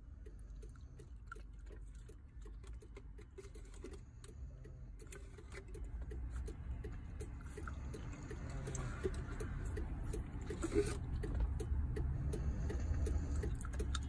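A bulldog puppy licking and sucking at a drinking straw: a regular run of small clicks, about three a second, that grows louder over the second half. A low steady rumble runs underneath.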